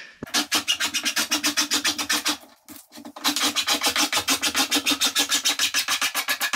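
Hand file rasping along a kitchen worktop's edging strip in quick, short, even strokes, trimming the strip flush with the worktop surface. The strokes stop briefly about halfway through, then carry on.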